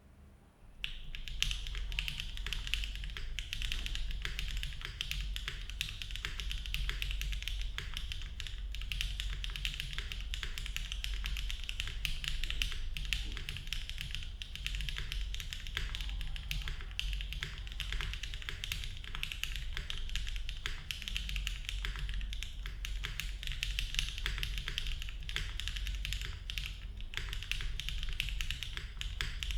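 Continuous typing on a QK65v2 mechanical keyboard with HMX Sunset Gleam linear switches, a polycarbonate plate, no case foam and GMK Dandy ABS keycaps. The keystrokes come in a dense, steady stream, starting about a second in.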